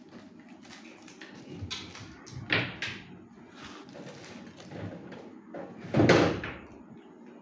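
A few knocks and bumps, the loudest a heavy thud about six seconds in.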